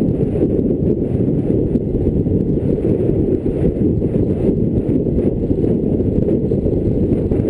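Steady low rumble of wind buffeting a camera microphone mounted on the bonnet of a moving 1957 Citroën DS19, mixed with the car's road and engine noise.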